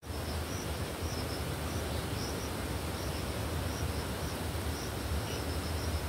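Insects chirping faintly in the undergrowth, a high broken trill in short pulses over a steady outdoor hiss and low rumble.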